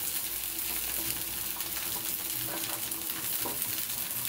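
Rava dosa frying on a hot dosa tawa: steady sizzling of the oil poured around its edges, with a few faint crackles.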